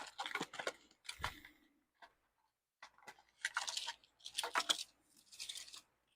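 Merchandise packaging being handled and unwrapped: a few sharp clicks, a soft thump, then three rustling bursts in the second half.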